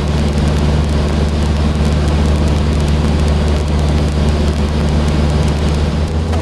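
Cessna 152's four-cylinder Lycoming engine and propeller droning steadily in flight, heard inside the cabin with a rushing wind-and-airframe hiss over the low hum.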